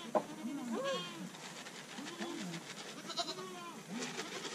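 Goats bleating, about five wavering calls in a row, some overlapping, with a quavering tremble in several of them.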